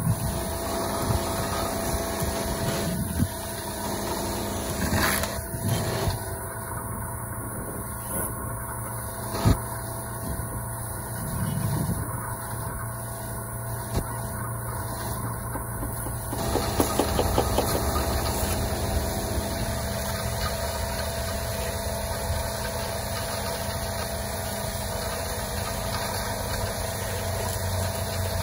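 A steady engine hum runs throughout, with a few sharp knocks and scrapes of a steel trowel working mortar on concrete block.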